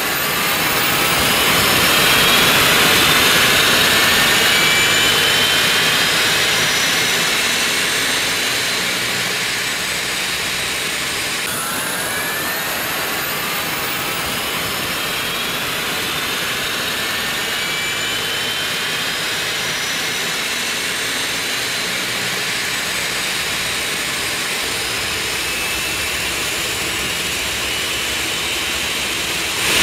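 Jet airliner engines at takeoff: a steady loud rush with high whines rising slowly in pitch. It swells over the first couple of seconds, eases a little and then holds steady, and a fresh rising whine begins about a third of the way through.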